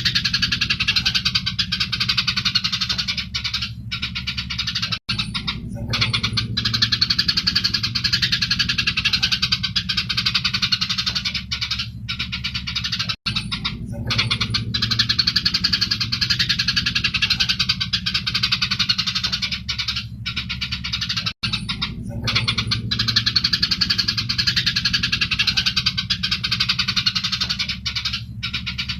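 Eurasian tree sparrows chattering in a dense, rapid stream of harsh chirps, the excited calling of sparrows fighting. It is a looped recording that repeats about every eight seconds, with a brief dropout at each join, over a steady low hum.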